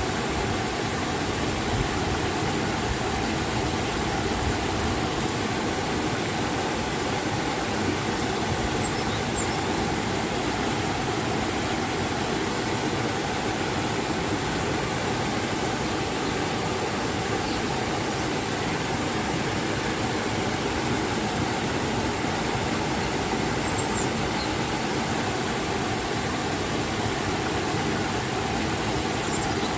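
River water pouring over a waterfall and rushing downstream in a steady, unbroken roar of white noise, with a few faint high chirps here and there.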